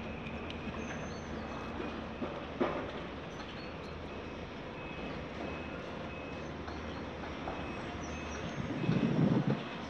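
Heavy diesel machinery running steadily, a Caterpillar 336 hydraulic excavator working alongside dump trucks, with a truck's reversing beeper sounding faintly about once a second. A louder low rumble rises near the end.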